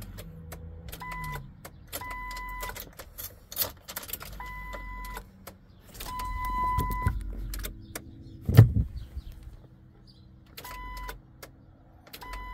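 Ford Excursion's electronic warning chime sounding in repeated short beeps, with scattered clicks as the key is tried, and the 7.3 diesel not cranking: a no-start. A loud thump about eight and a half seconds in.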